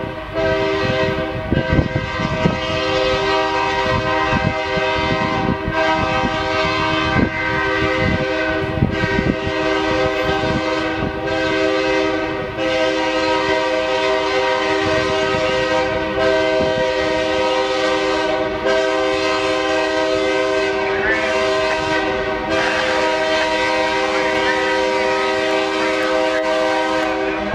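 Union Pacific diesel locomotive's air horn sounding several notes at once in a long, nearly continuous blast with a few brief dips, as the train approaches.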